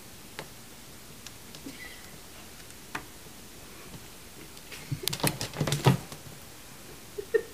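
A cat and a puppy scuffling: scattered light taps and clicks, then a burst of sharp knocks, thumps and crinkling about five seconds in as they tumble onto plastic bags.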